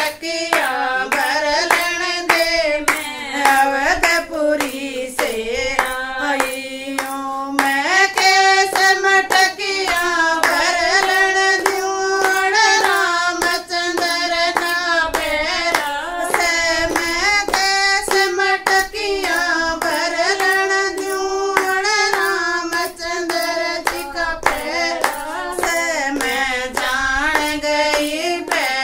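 Women singing a Haryanvi devotional folk song together, unaccompanied, with steady hand-clapping keeping time about twice a second. The melody moves up to a higher line about a third of the way in.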